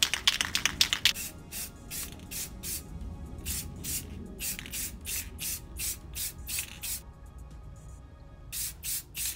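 Rust-Oleum aerosol can of clear coat: its mixing ball rattles fast as the can is shaken for about the first second, then the can sprays in short hisses, about two or three a second, pausing briefly before a few more near the end.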